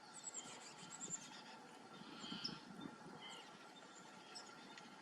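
Faint outdoor ambience with a few faint, short, high-pitched bird chirps.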